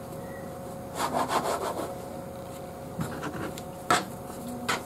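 Plastic dough scraper pressed and worked through bread dough against a plastic cutting board: a short scraping rub about a second in, then a few sharp clicks near the end. A steady hum runs underneath.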